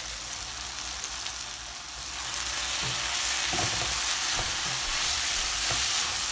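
Sliced onions sizzling in olive oil in a metal pan. The sizzle grows louder about two seconds in, as a spatula starts stirring them with light scrapes against the pan.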